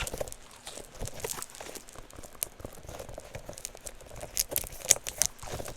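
A Nee-Doh squeeze toy with a cloud-like filling being squished in the hands, giving an irregular soft crinkling and crackling. A few sharper clicks come near the end.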